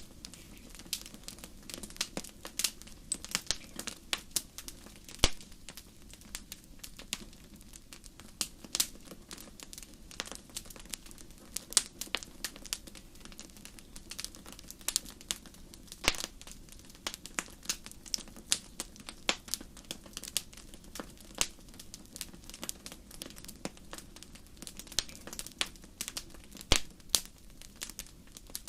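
Wood fire crackling in a fireplace: irregular sharp pops and snaps, several a second, over a steady low hiss of burning.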